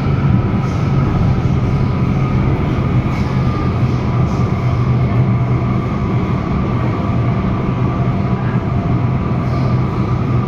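Madrid Metro 9400-series AnsaldoBreda electric train running at speed on 1500 V supply, heard from inside the car: a steady rumble of wheels and running gear with a thin, steady whine over it.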